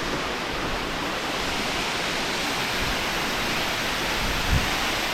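Steady rush of water pouring through a dam, an even hiss with no rhythm. There is one brief low thump about four and a half seconds in.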